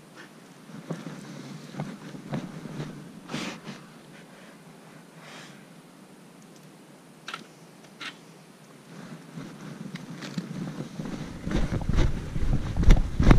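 Scattered clicks and rustles of clothing and leash handling at a walking pace, then wind buffeting the body-worn microphone with a low rumble that grows loud near the end.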